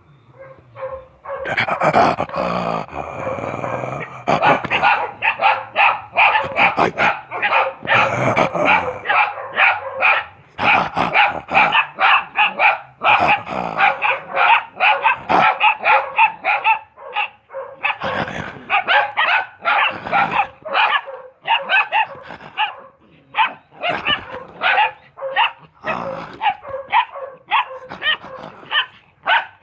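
Belgian Malinois puppies barking in a rapid stream of short, high-pitched barks, several a second.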